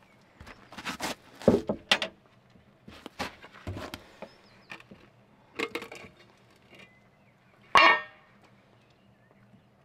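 Knocks and clinks of a metal tin and tools being handled on a wooden bench, with one louder metallic clank that rings briefly late on.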